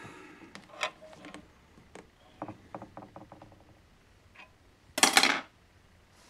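Light clicks and taps of a double-barrelled shotgun being handled, then a short, loud rustle about five seconds in.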